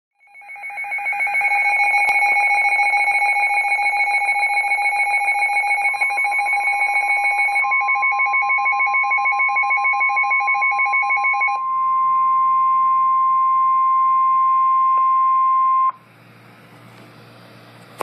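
Weather radio receiver going off for a warning alert: a fast-pulsing electronic alarm beep for about the first eleven seconds. Overlapping it from about six seconds in is the broadcast's 1050 Hz NOAA Warning Alarm Tone, one steady single tone that then carries on alone and cuts off suddenly about sixteen seconds in, leaving faint radio hiss.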